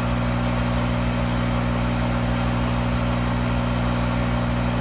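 Monarch 10EE toolroom lathe running at a steady speed with a constant hum and hiss, its spindle turning a clutch gear while burrs on the gear's contact face are skimmed off with emery cloth.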